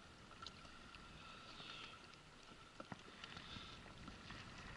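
Near silence: faint sea and wind noise around a small inflatable boat, with a few light clicks about three seconds in.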